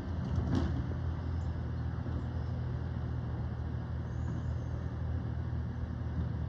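Mack garbage truck's diesel engine idling steadily while stopped, with one brief knock about half a second in.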